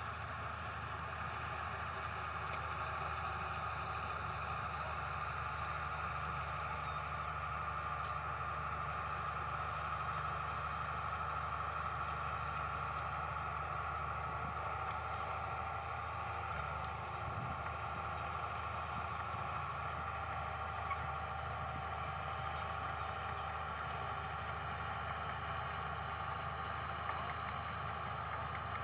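Heavy earthmoving machine's diesel engine running steadily, a constant low drone with a high whine above it and no marked revving.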